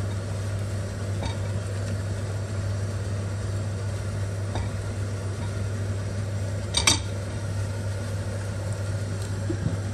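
Spatula stirring and scraping chicken and mixed vegetables as they stir-fry in a ceramic-coated wok, with one sharp tap on the pan about seven seconds in, over a steady low hum.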